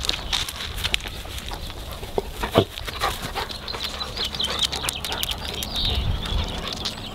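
Weimaraner dogs moving about on a driveway and lawn: scattered small clicks and rustles, with one short, louder dog sound about two and a half seconds in.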